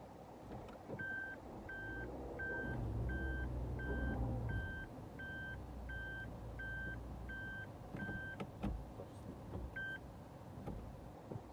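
Suzuki Jimny JB64's reverse warning beeper sounding in the cabin while the vehicle is in reverse, about one and a half even beeps a second for some seven seconds, then a single beep again near the end. Under it the small three-cylinder turbo engine runs low and swells about three to four seconds in, and there is a sharp knock a little past the middle.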